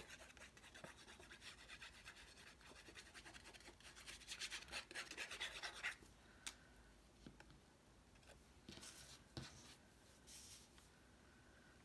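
Faint, fast scratchy rubbing of a hand pressing paper craft pieces down onto the card for about six seconds, then a few brief paper rustles and light taps.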